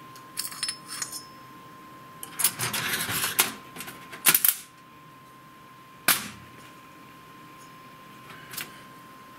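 Small metal tools and parts being handled: clicks and clatter of screws, a screwdriver and a steel bracket against the metal bed of a laser cutter. Two sharper knocks stand out, a loud one a little before halfway and another about two seconds later.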